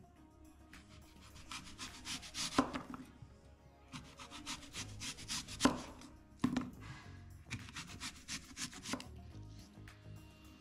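Kitchen knife slicing a green apple into thin rounds on a wooden cutting board: the blade rasps through the apple and knocks on the board with each slice. Two sharper knocks stand out, a few seconds apart.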